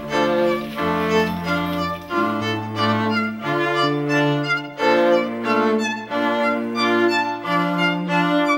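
Background music of bowed strings, a violin melody over a lower cello line, playing held notes that change every second or so.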